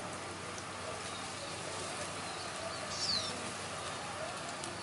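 Outdoor ambience: a steady background hiss with a bird giving a short, high, falling chirp about three seconds in, and fainter chirps around it.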